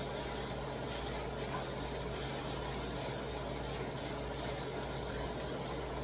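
Steady low mechanical hum, like a kitchen fan or appliance, with faint soft stirring of shredded cabbage in a frying pan by a wooden spatula.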